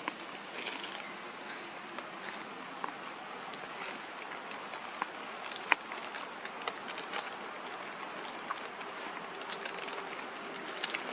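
Steady outdoor background hiss with scattered faint ticks and one sharp click about halfway through.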